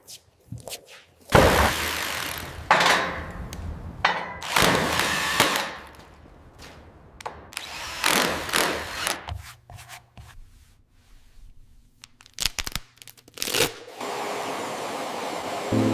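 Tool work on wood: uneven runs of rasping sawing noise, each a second or two long, then a few sharp knocks and a steady noise near the end.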